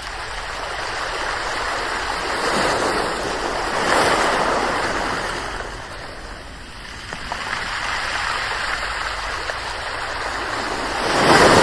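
Ocean waves breaking and washing on the shore, swelling and fading; waves crash about four seconds in and again near the end.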